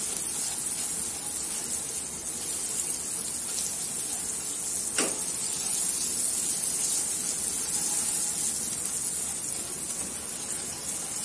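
Butter sizzling in hot melted sugar in a nonstick pan as it is stirred in with a silicone spatula, the butter-adding stage of making caramel sauce: a steady hiss, with one short knock about five seconds in.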